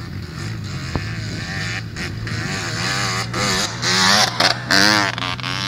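Quad bike engine running and revving as it climbs a rough hillside track. The pitch rises and falls unevenly, and it is loudest about four to five seconds in.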